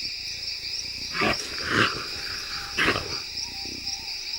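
Jaguars growling during mating: three short, harsh growls in the middle, over a steady high-pitched chorus of insects.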